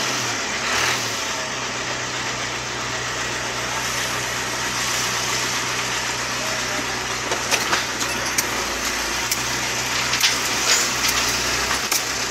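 Hino FB light truck's diesel engine running steadily as the truck drives slowly, heard from inside the cab, with a low hum and a few sharp clicks in the second half.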